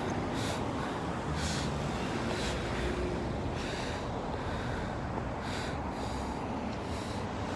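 Steady low outdoor traffic noise with wind, overlaid by short hissy scuffs about once a second.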